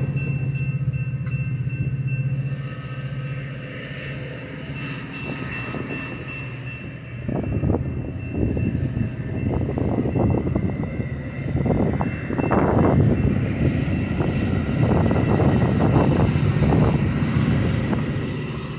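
Metra bilevel commuter train cars rolling past as the train pulls out, their wheels rumbling and clattering over the rails. A steady hum sits underneath early on. The clatter grows louder about seven seconds in, then eases off near the end as the last car goes by.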